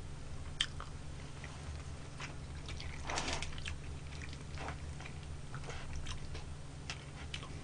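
Faint chewing with scattered soft clicks of wooden chopsticks picking food out of a takeout container, over a low steady hum.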